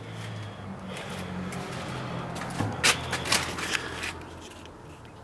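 Rustling and handling noise with a few sharp clicks near the middle, over a low steady hum that fades away after about four seconds.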